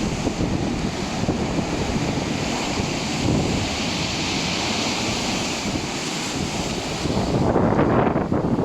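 Black Sea waves washing ashore, with wind buffeting the microphone; one wave swells up louder near the end.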